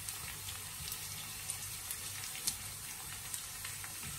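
Chopped onions sizzling in a little vegetable oil in a frying pan over medium heat: a steady hiss with scattered small pops and crackles.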